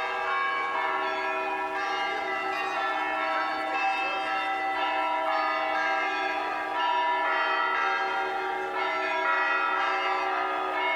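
Orthodox cathedral bells ringing together: many bells of different pitches struck over one another, their tones overlapping and ringing on without a break.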